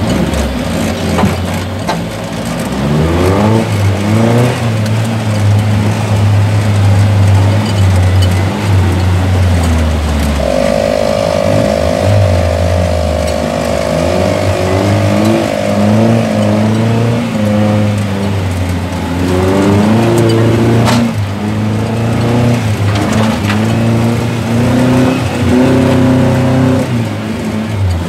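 Engine of an off-road vehicle driving a rough dirt course, heard from inside the cab, its revs rising and falling again and again. A steady higher whine holds for about six seconds midway.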